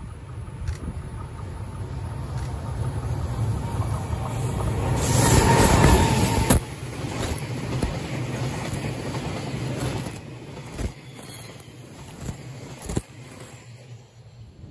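A freight train hauled by a JR Freight EH200 electric locomotive passing. The rumble builds to its loudest about five to six seconds in, then drops off suddenly and goes on lower.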